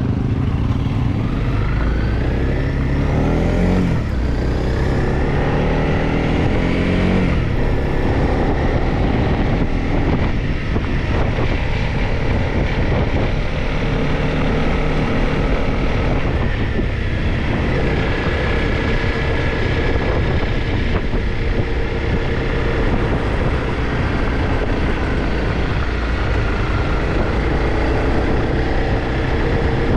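Single-cylinder four-stroke dual-sport motorcycle engine running under way, rising in pitch twice in the first eight seconds as it accelerates, then holding a steadier pace.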